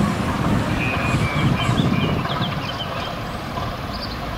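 DB Class V 65 diesel locomotive running at low speed with a train, its diesel engine giving a steady low rumble that eases slightly in the second half.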